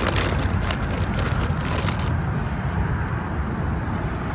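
Steady low outdoor rumble with faint crackling through the first two seconds.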